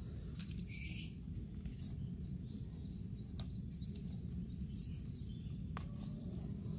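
Steady low outdoor background noise with faint short bird chirps repeating. A brief rustle about a second in and a few sharp clicks later come from green lettuce leaves being snapped off a potted plant by hand.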